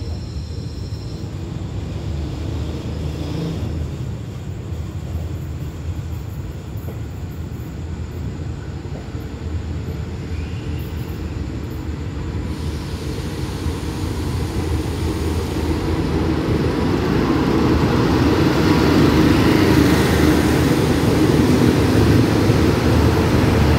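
Passenger train approaching and pulling in alongside the platform: a steady rumble that swells over the last ten seconds as the train arrives, with wheel-on-rail noise loudest near the end.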